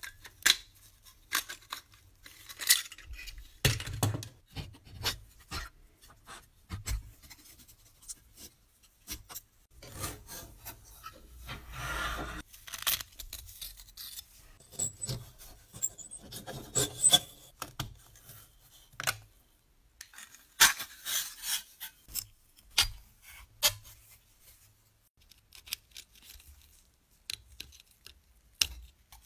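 Small rusty metal parts of a sheet-metal toy locomotive being handled and taken apart: many sharp clicks and clinks of metal on metal, with a few longer stretches of scraping and rubbing on the rusted metal.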